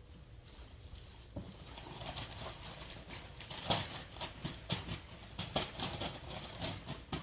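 Footsteps crunching and rustling through dry fallen maple leaves, starting about a second and a half in and getting louder, about two steps a second.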